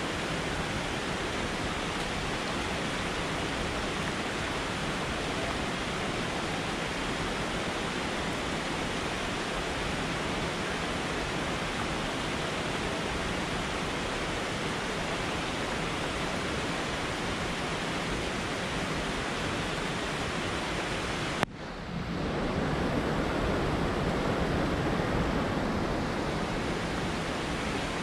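Steady rush of a mountain river or waterfall. About three-quarters of the way through it cuts off for an instant and comes back duller and a little louder, with less hiss.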